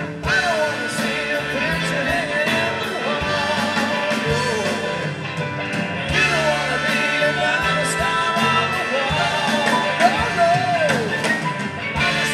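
Live rock band playing: electric guitars, bass, drums and keyboards, backed by a horn section, with a lead vocal over the top.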